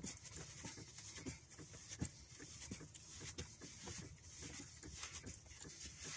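Flaxseed bread dough being kneaded by hand on a worktop: faint, irregular soft thuds of the hands pressing and pushing the dough.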